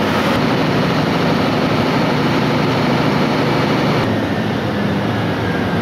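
Caterpillar 3512 V12 diesel generator engine running steadily. About four seconds in, the higher part of the sound drops away and a faint whine begins to fall in pitch as the engine is stopped and starts to run down.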